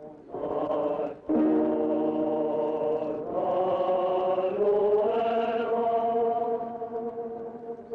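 Film score: a choir singing slow, long-held chords, changing chord between phrases.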